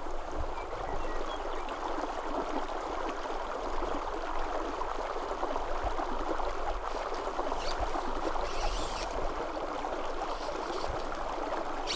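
Small spring creek running and burbling steadily.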